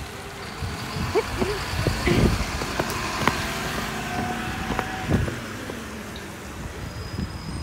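Road traffic on a street: a motor vehicle running past, with a few short knocks.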